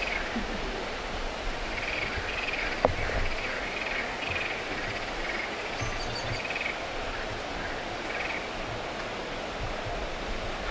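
Steady outdoor background rush with faint intermittent chirps and a single sharp tick about three seconds in.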